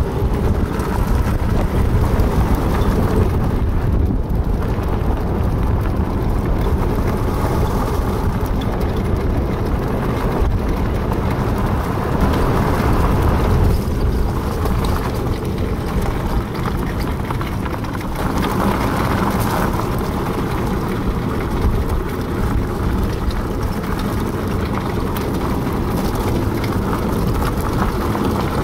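Four-wheel dog cart rolling along a gravel road behind a husky team, a steady rolling noise of the wheels and frame.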